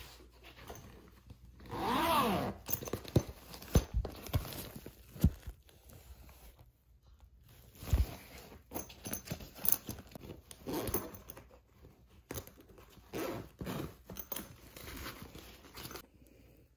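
Handling noise from a zippered fabric oboe case cover: the zipper being opened, rustling fabric and a string of sharp clicks and knocks. A short pitched sound rises and falls about two seconds in.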